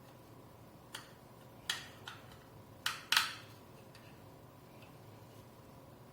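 Five sharp clicks and taps of small hard parts being handled and set down during laptop disassembly, the last and loudest a little over three seconds in.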